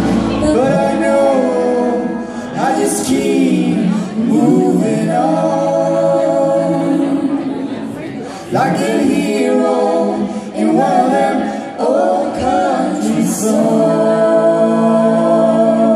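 Several male and female voices singing together in harmony, recorded live in a room. The band's low instrumental backing drops out about half a second in, leaving the voices largely a cappella in sung phrases with short breaks between them.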